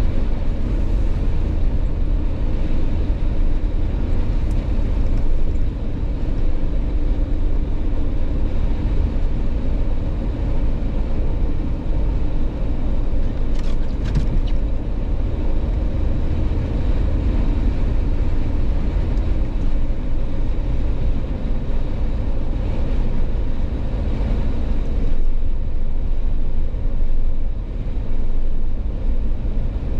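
Jeep driving: a steady low rumble of engine, tyre and wind noise, with a few brief clicks about fourteen seconds in.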